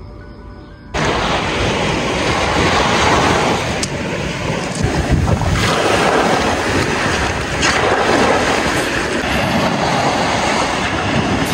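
Wind buffeting the microphone: a loud, uneven rushing noise with heavy low rumble that starts suddenly about a second in.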